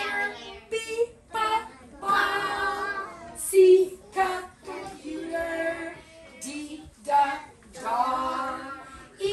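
A woman and young children singing a song together.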